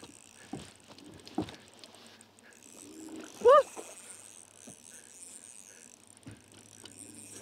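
An angler plays a hooked bass from a boat: a few faint knocks and clicks of rod and reel handling over a steady high hiss. About halfway through comes a short, rising vocal exclamation.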